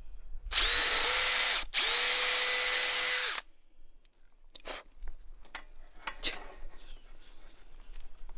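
DeWalt cordless drill with a twist bit boring into a block of wood: two runs of steady motor whine, about a second and then about a second and a half, with a short pause between. After that, a few light knocks.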